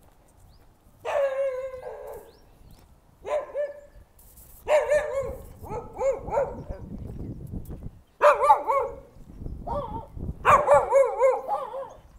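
A dog barking loudly and repeatedly, in short runs of barks starting about a second in.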